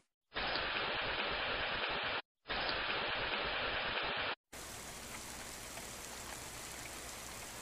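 Rain sound effect: a steady hiss of falling rain. It breaks off twice for a moment, about two and four seconds in, and after the second break it comes back quieter.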